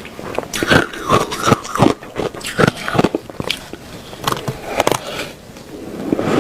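Ice being bitten and chewed close to the microphone: a run of sharp, irregular crunches that thin out after about three seconds.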